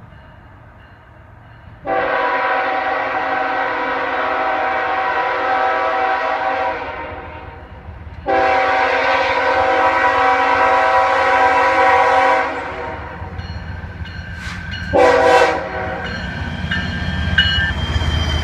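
CSX diesel freight locomotive's horn blowing two long blasts of about five and four seconds, then a short one. The low rumble of the coal train's lead locomotives grows near the end as they pass close by.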